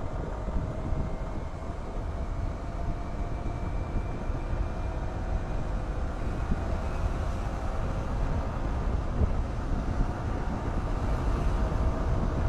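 Motorcycle engine running at cruising speed, buried under a steady low wind rumble on the microphone, its faint tone rising a little a few seconds in.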